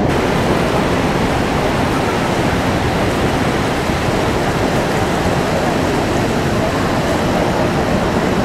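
Steady rushing of the Horseshoe Falls at Niagara, the river pouring over the brink close by.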